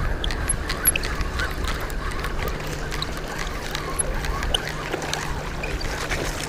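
Wind rushing over the microphone and water washing around the shallows, with scattered faint clicks from a spinning reel being cranked on the retrieve.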